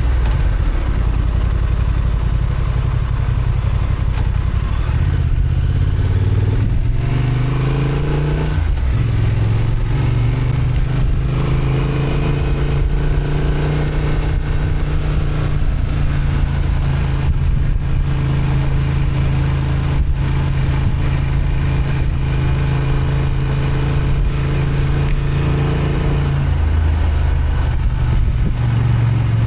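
Honda XL750 Transalp's parallel-twin engine running under load on a climb. Its note rises about a quarter of the way in and drops back, as on a gear change, then holds steady and falls lower near the end.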